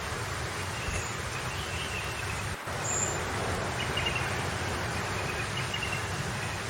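Outdoor ambience: a steady hiss over a low rumble, with short, high chirping calls repeating through it. Near the middle the sound briefly dips, then carries on slightly louder.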